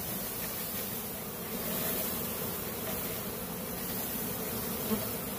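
Steady buzzing of a mass of honeybees just shaken out of a package cage, many flying and crawling over the heap on the ground.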